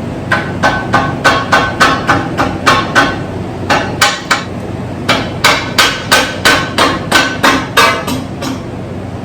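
A mallet taps repeatedly, about three times a second, on the top half of an engine to break it free from the old silicone sealant and crud holding it down. Each tap rings briefly.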